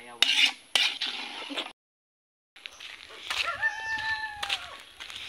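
A metal spoon clinks sharply against a cooking pot a few times while food is stirred; after a short break in the sound, a rooster crows once, a long call that rises, holds and falls away at the end.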